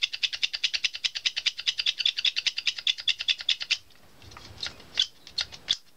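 Rapid, even clicking, about ten clicks a second, from the Technics SL-1900's arm-lift (cueing) mechanism being worked back and forth by hand, now moving freely after its old sticky grease was loosened with WD-40. About two-thirds of the way through the clicking thins to a few scattered clicks.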